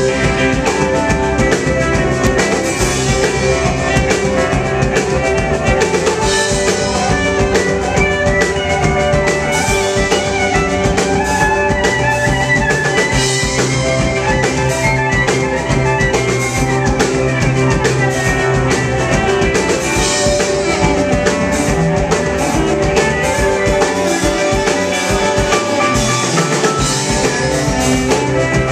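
Live rock band playing an instrumental passage without singing: drum kit and electric guitar, with cello, banjo and keyboard.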